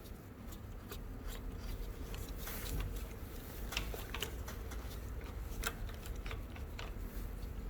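Scattered light metallic clicks and ticks, irregular and short, of hand tools being handled: locking grip pliers being set and clamped onto the strut's shock absorber rod to hold it while the top nut is undone.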